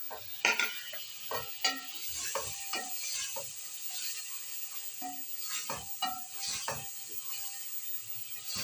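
Wooden spoon scraping and knocking against an aluminium pot at an irregular pace as chicken, onion, tomato and freshly added turmeric and red chilli powder are stirred and fried, with a light sizzle underneath.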